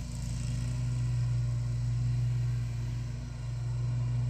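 Lawnmower engine running steadily, a constant low drone that dips slightly about three seconds in.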